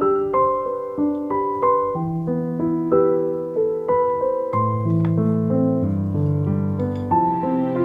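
Background music: a gentle piano melody with sustained bass notes.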